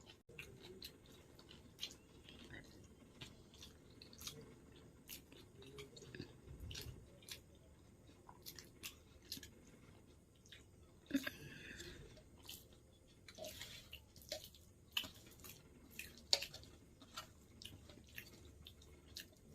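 Close-up eating sounds: chewing and slurping noodles and fried egg, with many small wet mouth clicks and a few louder smacks about halfway through and near the end.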